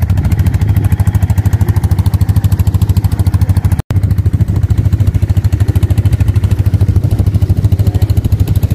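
Quad bike (ATV) engine idling, a loud steady low rumble with a fast even pulse. It cuts out for an instant about four seconds in and then carries on.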